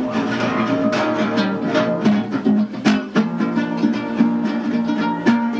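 Guitar music with no singing: plucked and strummed notes and chords.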